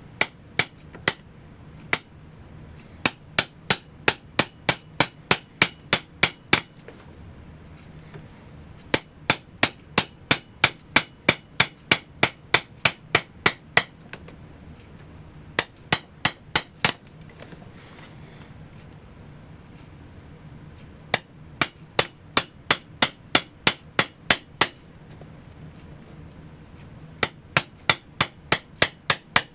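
Hammer tapping in quick, even blows, about three a second, in runs of several seconds with short pauses between, driving old nails out of the basket's hinges.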